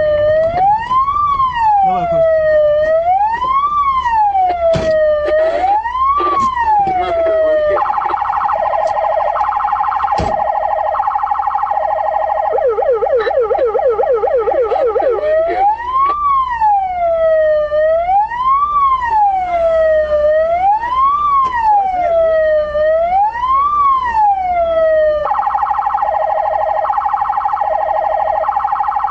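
Russian traffic police car siren sounding continuously. It wails up and down about every two and a half seconds, switches to a two-tone alternating pattern about eight seconds in and then to a fast yelp, returns to the slow wail about sixteen seconds in, and goes back to the two-tone pattern near the end.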